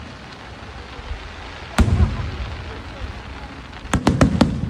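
Aerial fireworks shells bursting: one loud bang about two seconds in, then a quick cluster of four bangs near the end, each trailing off in a low rumbling echo.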